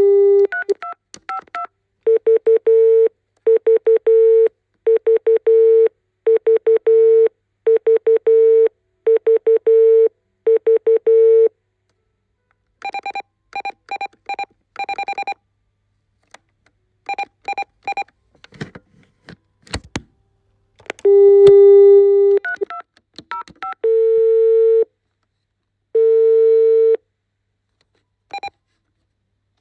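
Electronic beeping in shifting patterns: seven repeated bursts of rapid beeps, each ending in a short held tone, then higher beeps, a few clicks, a long low tone and quick blips at changing pitches.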